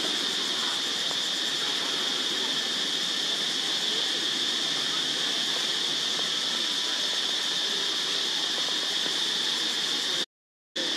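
A chorus of insects drones steadily at one high pitch. It cuts out completely for about half a second near the end.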